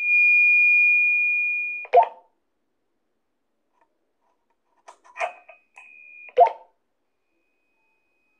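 Walkie-talkie sounds: a steady high beep lasting about two seconds, cut off by a short crackling click. About five seconds in come a brief crackle, a shorter beep at the same pitch and another click.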